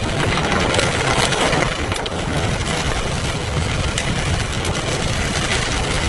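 Car driving in heavy rain, heard from inside the cabin: a low engine and road rumble under a steady hiss of rain and wet tyres, with a few sharp taps.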